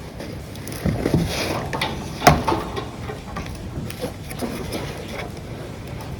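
Scattered clinks and knocks of hand work on a tractor engine as a hose is worked loose and pulled off, with one sharper knock about two seconds in.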